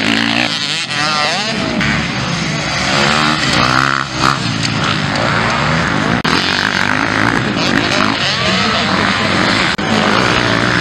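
Several motocross bikes' engines revving hard and dropping as the riders shift and pass, the pitch rising and falling over and over.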